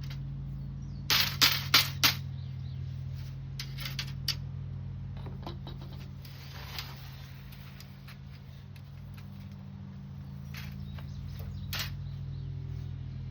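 Sharp metallic clicks and taps from handling a window screen frame with metal mesh and metal spline: four loud clicks in quick succession about a second in, then scattered lighter ones, over a steady low hum.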